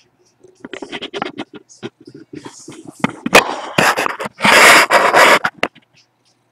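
Loud, irregular scratching and scraping right at the microphone, a run of clicks and rustles that is loudest about four and a half to five seconds in and stops about six seconds in.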